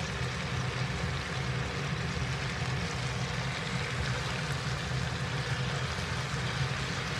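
Steady hiss with a low hum underneath: kitchen background noise while vegetables are turned over in a cast-iron pan, without any distinct scrapes or knocks.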